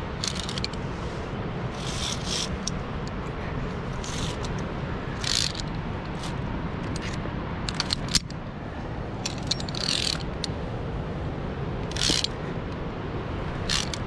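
Via ferrata carabiners scraping and clinking along a steel safety cable and against steel rungs, in short bursts every second or two, over a steady rushing background.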